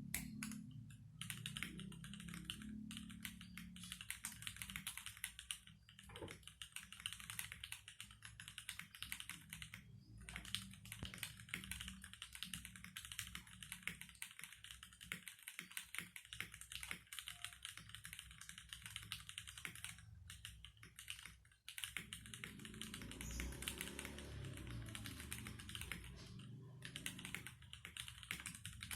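Fast, continuous typing on a Fantech Maxfit61 60% mechanical keyboard with unlubed Cherry MX Black Hyperglide linear switches in an aluminium plate: a dense run of key clacks with a few brief pauses. Background music plays under it in the opening seconds and again in the last third.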